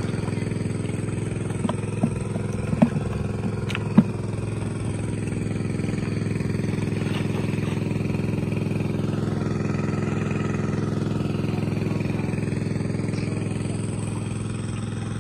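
Small engine-driven water pump running steadily at an even pitch, draining the pond. A few sharp knocks come in the first four seconds, the loudest about four seconds in.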